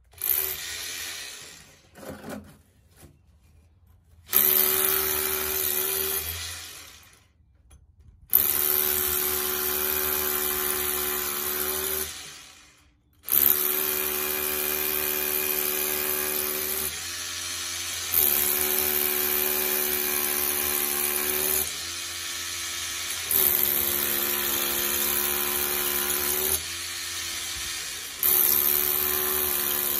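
Hammer drill boring into a concrete block wall in repeated runs of a few seconds, with short stops between them. The holes outline the opening for an electrical box.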